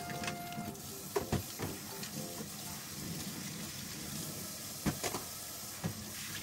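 Tap water running into a kitchen sink during hand dishwashing, with a few clinks of crockery about a second in and again around five seconds in. A few notes of background music end in the first second.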